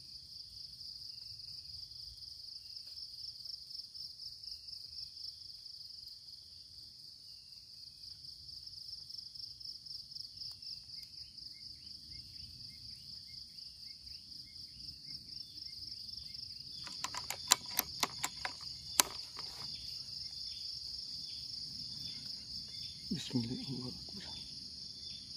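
Insects trilling in a steady, high, rapidly pulsing chorus. About two-thirds of the way through, a quick cluster of sharp clicks and knocks comes through louder than the chorus, and a short muffled thump follows near the end.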